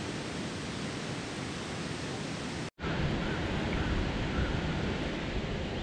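Steady rushing outdoor noise with no distinct events. It breaks off for an instant a little under three seconds in and comes back slightly louder.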